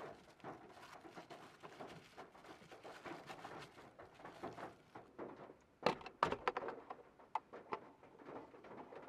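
Fork stirring food in a steel camp cup lined with plastic wrap: soft crinkling and scraping. About six seconds in comes a run of sharp plastic clicks and knocks as the lid of a small lunchbox-style electric rice cooker is opened and lifted off.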